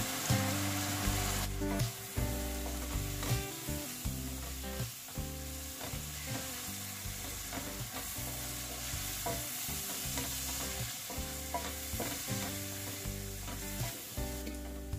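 Sliced onions and ground spices frying in oil in a stainless steel pan, sizzling, while a spatula stirs and scrapes them against the pan with repeated light knocks. This is the onion-spice masala being fried until the oil separates.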